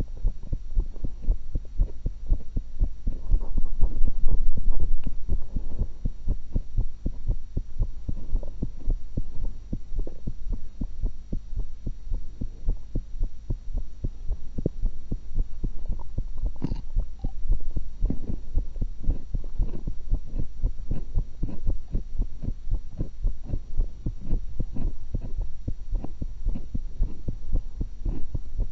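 Heartbeat heard through a stethoscope: a steady run of low, dull beats over a constant hum, with a louder stretch a few seconds in.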